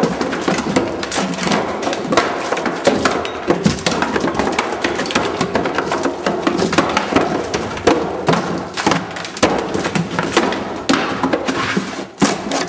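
Demolition banging: repeated irregular knocks and crashes of tools breaking up wood, with music playing underneath.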